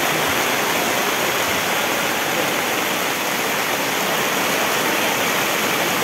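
Heavy rain driven by strong wind, a steady, loud rushing hiss.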